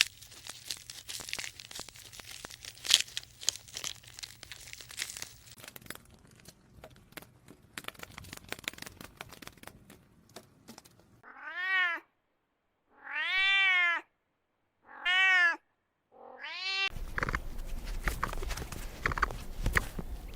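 An animal giving four meow-like calls, each rising then falling in pitch, after a stretch of faint crackling and clicking.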